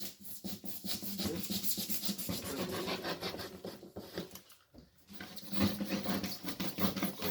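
A knife sawing through polystyrene foam in rapid back-and-forth strokes, a rasping, squeaky scraping, with a short pause about five seconds in.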